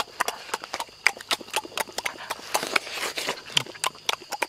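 Close-up eating sounds of people chewing roasted goose with their mouths open: a quick, irregular run of wet smacks and clicks.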